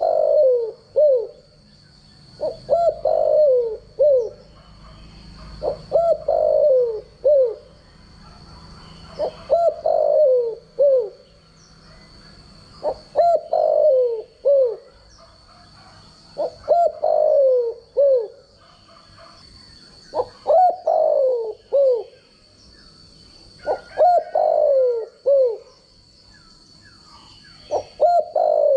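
Spotted dove cooing: a phrase of a few short notes ending in a longer falling coo, repeated about every three and a half seconds. A faint steady high whine runs behind it.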